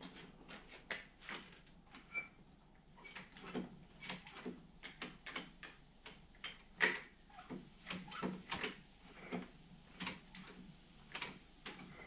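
Irregular plastic clicks and knocks, a couple a second, from a Greenworks 40V cordless mower's safety button and bail handle being worked, with no motor starting. The mower won't start because its stretched switch cable is not engaging the switch.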